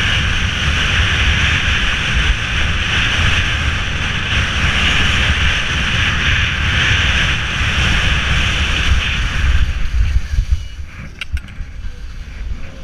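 Skis hissing and scraping over snow at speed, with wind rumbling on the helmet camera's microphone. About ten seconds in the ski hiss stops as the skier slows to a stop, and a few sharp clicks follow.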